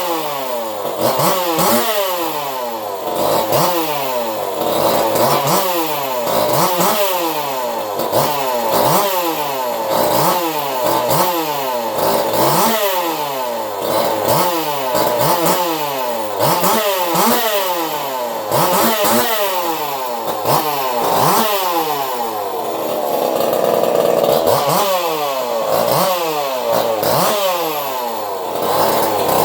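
Custom-built two-stroke chainsaw engine with a swapped crank and piston and a modified muffler, running and revved over and over. Its pitch climbs and falls back about once a second, holding steadier for a few seconds a little after two-thirds of the way through.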